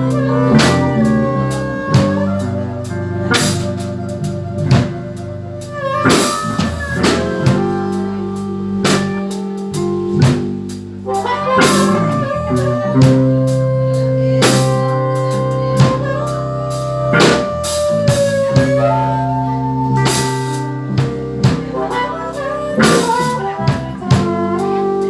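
Blues band playing live in an instrumental passage without singing: a drum kit keeps time under held guitar and band notes.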